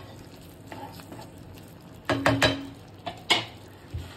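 Wooden spatula knocking against a cooking pan a few times while stirring a thick sauce, the loudest knocks about two seconds in, over a low steady hiss from the pan.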